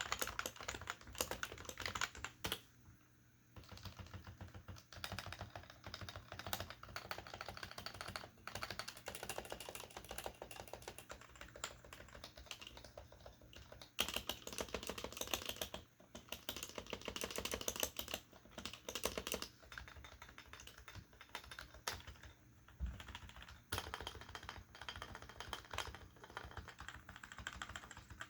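Fast continuous typing on an HHKB Professional keyboard with Topre electrostatic-capacitive switches and PBT dye-sublimated keycaps, the original rubber domes still snappy. Typing stops briefly about three seconds in, then resumes, with a louder flurry about halfway through.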